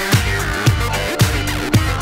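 Soundtrack music driven by a steady deep kick drum, about two beats a second, over sustained synth-like tones.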